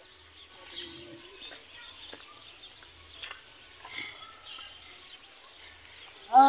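Birds chirping faintly in the trees, with light scattered clicks of footsteps on dry dirt. Near the end a man's voice starts, loud and close.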